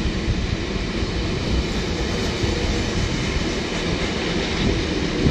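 Long rake of Yeoman hopper wagons on a stone train rolling past: a steady rumble of steel wheels running on the rails.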